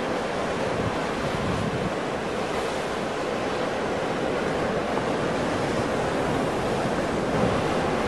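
Ocean surf, with waves breaking continuously into a steady rushing wash of water and no single crash standing out.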